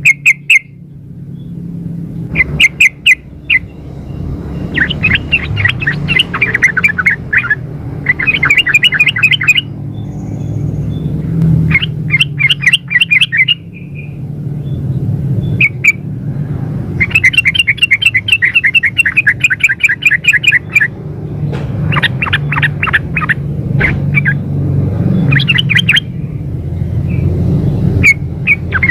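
Yellow-vented bulbul (trucuk) calling in repeated runs of rapid chattering notes, each run lasting one to four seconds with short gaps between. A steady low hum runs underneath. Offered as a female's call to draw males into answering.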